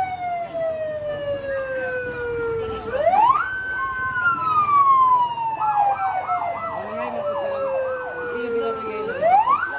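Fire truck siren wailing. The pitch falls slowly over several seconds, rises quickly about three seconds in, holds briefly, then falls slowly again and rises once more near the end. A faster warbling tone cycles about four times a second for a couple of seconds in the middle.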